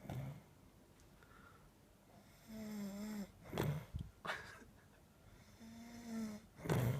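A man snoring, with a bubbly sound to his breathing. Twice a wavering low tone is followed by a loud, rough blast of breath, the second near the end.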